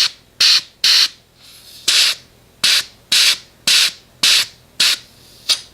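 Compressed air hissing into a lawn mower tire through an air chuck in about ten short bursts, a little air at a time to bring the tire up to 20 psi.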